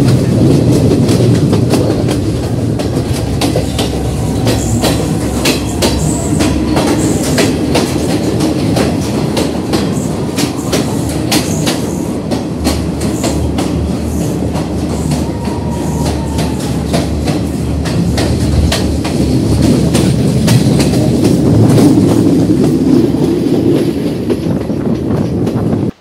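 Passenger train running along the track, heard close up from an open carriage doorway: a steady low rumble with rapid clickety-clack as the wheels cross rail joints. The low rumble grows heavier for several seconds in the middle while the train runs through a tunnel.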